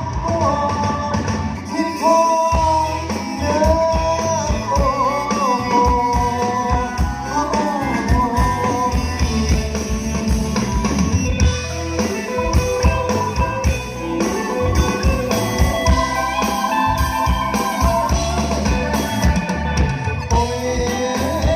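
A band playing a song live, with drum kit, bass and guitar keeping a steady beat under a bending melody line.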